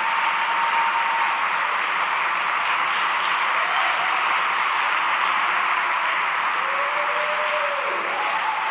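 Audience applauding steadily, with a few faint calls rising above the clapping.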